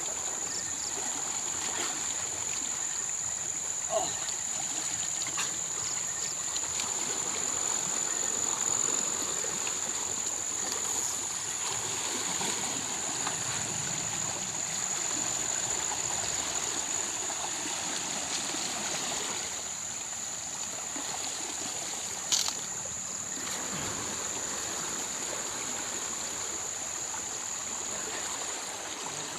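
River water flowing and trickling steadily, with a thin high-pitched tone held over it throughout. A short sharp knock comes a few seconds in, and a louder one about three-quarters of the way through.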